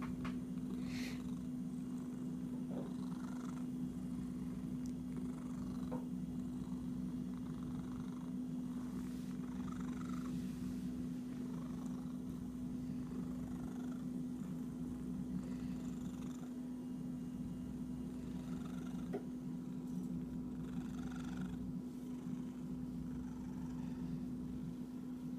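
Domestic cat purring steadily and continuously while being scratched, with a few faint brief rustles over the purr.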